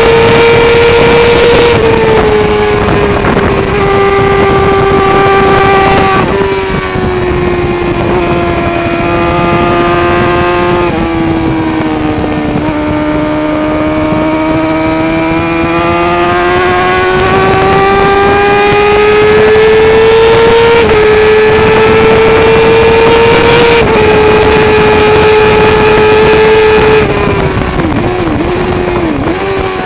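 Kawasaki ZXR400 race bike's inline-four with a Pipewerx exhaust howling at high revs at full throttle. Its pitch falls in steps through the downshifts into a corner, sags about midway, then climbs back up through the gears. Near the end the revs dip and rise in quick blips.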